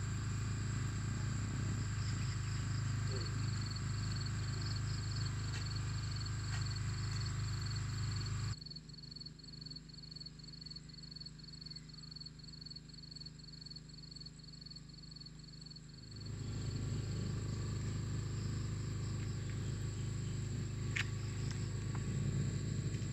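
Outdoor ambience: an insect chirping in a steady, evenly repeating high pulse over a low rumble. The rumble drops away for several seconds in the middle, while the chirping carries on.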